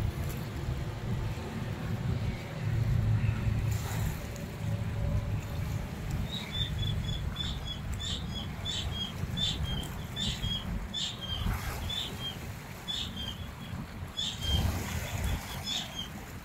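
Low rumble of a twin-engine jet airliner flying overhead and climbing away, mixed with wind buffeting the microphone. From about six seconds in until near the end, a bird calls in quick runs of short high chirps.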